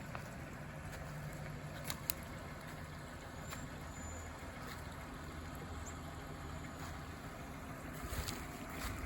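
Steady rush of rainwater runoff over a low, steady hum, with a few faint clicks.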